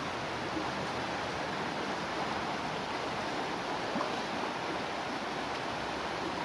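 Fast, muddy river rushing steadily over rocks: an even wash of water noise.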